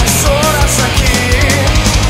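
Loud heavy rock music with a fast, steady drum beat and cymbals.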